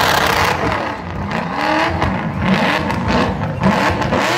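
Supercharged LS V8 of a Holden Commodore burnout car revving up and down in quick, repeated rises and falls. The hiss of tyre squeal dies away about half a second in.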